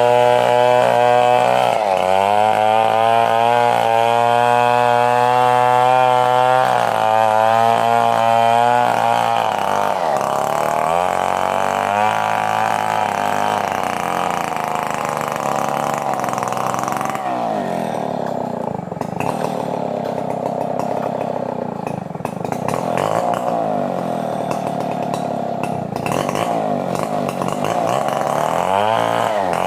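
Stihl 070 two-stroke chainsaw running under load while cutting wood. Its engine pitch dips and recovers as the chain bites into the cut, and the sound turns rougher and more wavering in the last third.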